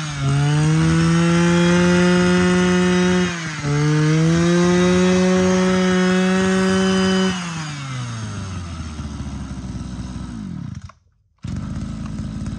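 Echo Kioritz 235 brush cutter's 23cc two-stroke engine revved to full throttle twice with a brief dip between, then gliding down to a steady idle about seven seconds in. The idle breaks off for half a second near the end and resumes.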